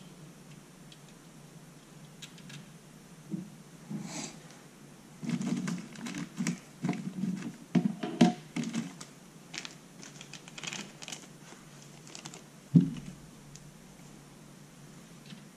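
Clicking and clattering of small hardware and hand tools being handled, busiest about five to nine seconds in, then a single sharp knock a few seconds later.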